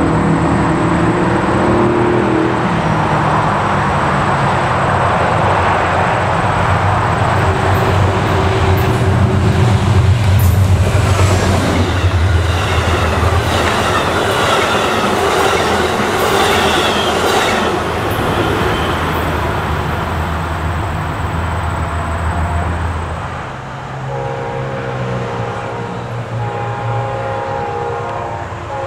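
Amtrak P32AC-DM diesel locomotive approaching with its engine running and horn chords sounding, then passing close with its coaches' wheels clattering over the rail joints. A few seconds before the end a train horn sounds again, more distant.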